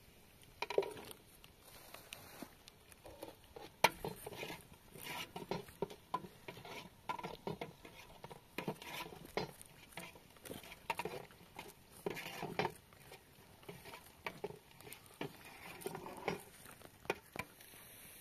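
Irregular knocking, clinking and scraping of objects being handled, one or two short sounds a second.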